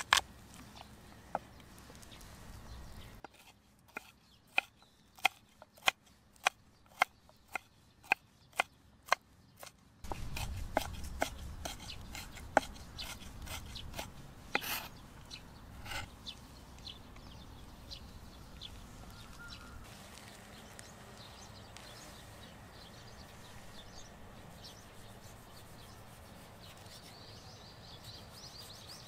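Kitchen knife on a wooden cutting board: a sharp crack at the start as garlic is crushed under the flat of the blade, then a run of even chopping taps about two a second, then faster, denser chopping while the garlic is minced. Near the end, quieter cutting sounds as a tomato is sliced.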